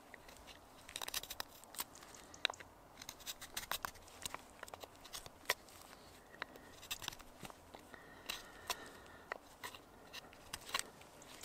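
Knife carving a peeled wooden stick: short, irregular cutting and scraping strokes of the blade shaving the wood, some sharp and clicky.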